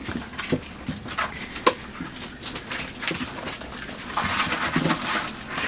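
Young puppies making short high whines, squeaks and little grumbles while they scuffle and play, over sharp clicks and knocks, with a longer rustling scrape about four seconds in.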